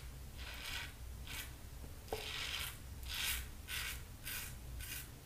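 Fine Accoutrements Marvel double-edge safety razor scraping through lathered stubble on the cheek in about seven short strokes, on the final pass against the grain.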